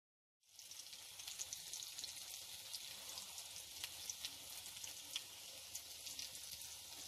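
Breaded chicken nuggets deep-frying in hot oil on a medium-to-low flame: a steady sizzle dotted with many small pops and crackles, starting about half a second in.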